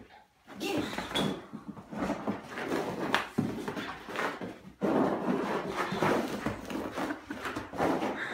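A large Akita dog playing roughly with a small furry plush toy on carpet: continuous scuffling and rustling, with irregular thumps as he pounces and shakes the toy.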